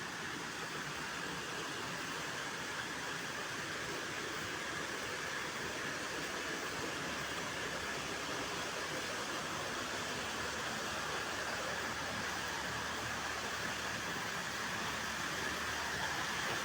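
Steady rushing of a waterfall, a continuous hiss of falling water that grows gradually louder.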